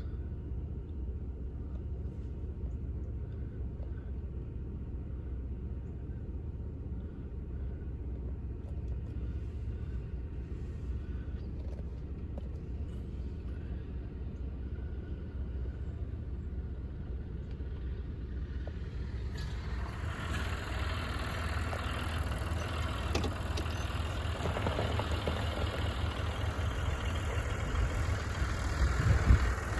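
A motor vehicle's engine runs with a steady low rumble. About two-thirds of the way in, a louder rushing noise joins it and builds towards the end.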